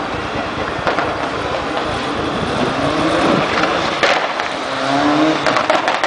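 Mitsubishi Lancer Evolution's turbocharged four-cylinder engine revving hard around an autocross course, rising in pitch twice, with sharp cracks and pops from its anti-lag system over a constant rough noise.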